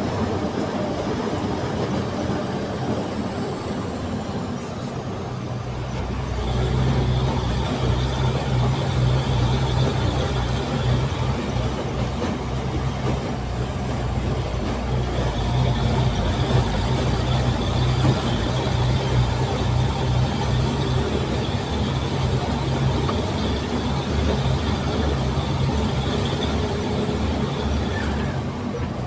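Heavy earthmoving machinery, an excavator and dump truck, running steadily. The engine drone grows louder and deeper about six seconds in, with a faint high whine above it for long stretches.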